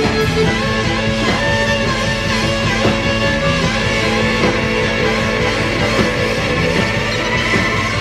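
Live rock band playing: electric guitar over bass guitar and drums.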